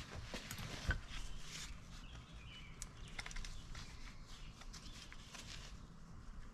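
Handling noise from a metal motorcycle clutch housing turned over in gloved hands: scattered light clicks and taps, with one sharper knock about a second in.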